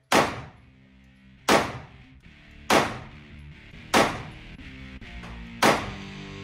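Five pistol shots fired at a slow, deliberate pace, roughly one every second and a half, each a sharp crack with a short echo off the walls of an indoor range lane. Music plays faintly underneath.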